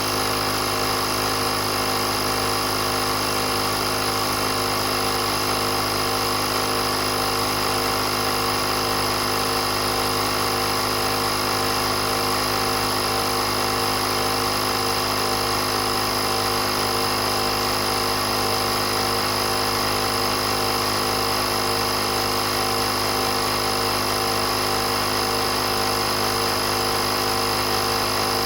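Oasser portable 12V air compressor running steadily, its small motor and piston pump giving a constant mechanical hum with a whine that holds the same pitch throughout.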